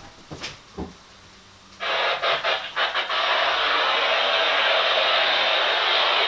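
Weather radio receiver putting out a steady hiss of radio static through its small speaker, starting abruptly about two seconds in after a couple of faint clicks.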